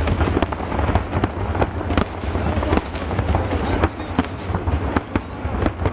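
Fireworks display: shells bursting in a rapid, irregular run of sharp bangs and crackles, several a second, over a steady low rumble.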